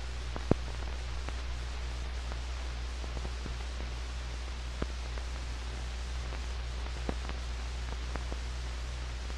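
Steady hiss and low mains-type hum of an old 1940s optical film soundtrack running with no programme sound, broken by a few scattered clicks and pops. The loudest pop comes about half a second in.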